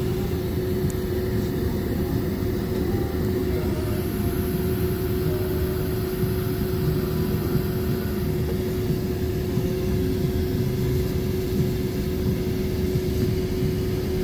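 Cabin noise of a Boeing 767-400ER taxiing after landing: a steady low rumble with a constant hum from its General Electric CF6 engines at idle thrust.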